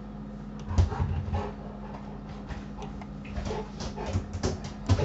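A pet dog making short bursts of noise off-camera, about a second in and again from about three and a half seconds in, over a steady low electrical hum.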